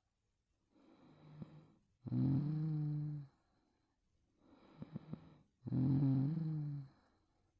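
A sleeping young woman snoring. Two loud, pitched snores about a second long come about three and a half seconds apart, each after a quieter, rattling breath.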